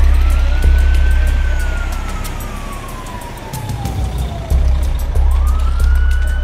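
Emergency-vehicle siren wailing: the pitch sweeps up quickly, then falls slowly over a few seconds, and sweeps up again about five seconds in. A deep low drone runs under it.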